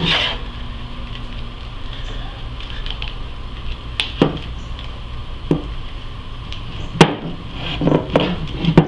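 Handling noise of a slit piece of rubber garden hose being worked onto a hand saw's handle: scattered knocks and clicks, a few spread apart then a busier cluster near the end, over a steady low hum.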